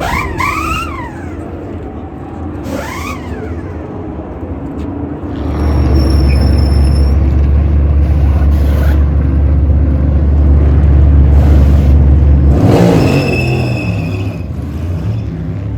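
NASCAR Cup Series stock cars' V8 engines racing by: two brief rising-and-falling engine sweeps early, then a long, heavy low rumble through the middle that fades near the end.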